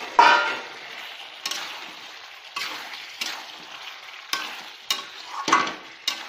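Mutton, potatoes and whole tomatoes sizzling in oil and masala in a metal pan while being stirred: a steady sizzle with a spatula scraping and knocking against the pan about once a second. The loudest scrape, with a brief ring, comes right at the start.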